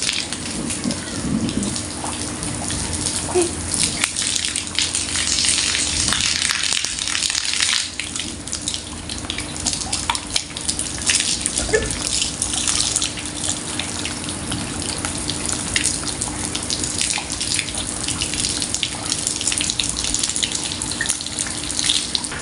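Tap water pouring and splashing as it is poured over a person's body, an uneven spatter throughout.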